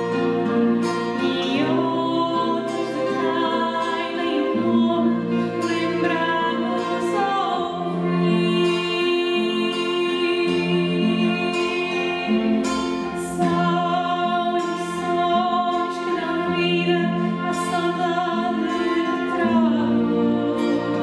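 Fado song accompanied by classical guitars and violins, with a woman's voice singing over the held violin notes and plucked guitar chords.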